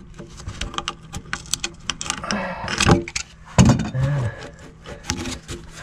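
Metal hand tools clinking and knocking in a run of irregular sharp clicks, as channel-lock pliers are handled to grip a tub drain's slip nut.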